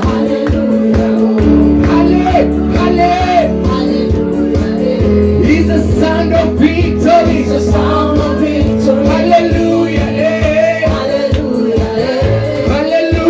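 Church praise music: voices singing over a band with a steady drum beat and held keyboard chords, and a bass line coming in about a second and a half in.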